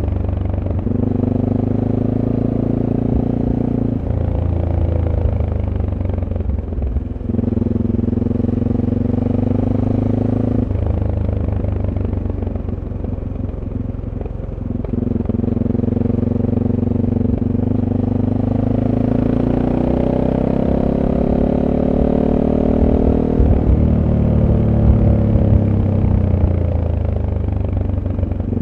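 SWM Super Dual T's single-cylinder engine with its stock exhaust, heard onboard while riding: the engine note holds steady, drops when the throttle is closed and climbs again as the bike accelerates. There is a rougher, quieter stretch of easing off around the middle, and a long rise in pitch that falls away about two-thirds of the way through.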